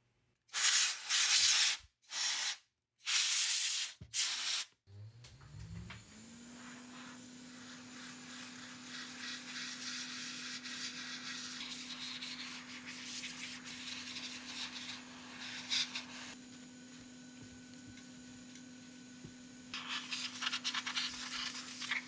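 Canned compressed-air duster fired in several short, loud blasts. Then a small handheld rotary tool spins up about five seconds in and runs at a steady pitch, its bit scrubbing against the remote's plastic parts with a rasping sound that eases off for a few seconds near the end and then returns.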